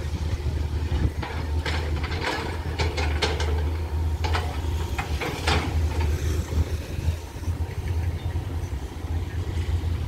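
Excavator's diesel engine running steadily at a track-construction site, with a run of sharp metallic clanks and knocks from the work between about one and five seconds in.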